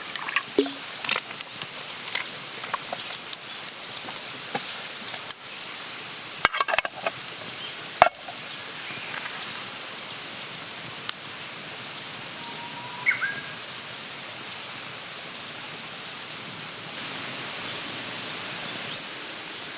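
Wood campfire crackling and popping over a steady hiss, with a cluster of louder snaps about six to eight seconds in.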